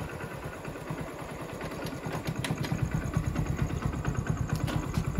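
Motorcycle engine running at low speed with an even low pulsing that grows louder about two seconds in.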